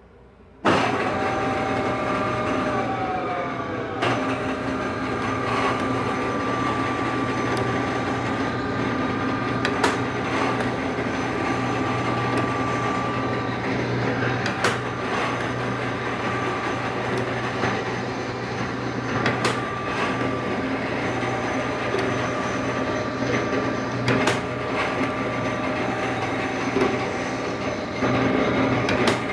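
Automatic lathe running and cutting, a steady machine hum with whining tones and a wash of coolant, coming in suddenly just after the start. A tone falls in pitch in the first few seconds, and a sharp clack comes about every five seconds as the machine runs through its cycle.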